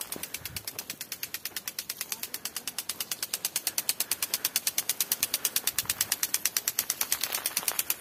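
Impact sprinkler spraying water, its arm ticking rapidly and evenly, about six or seven clicks a second, growing louder about three seconds in.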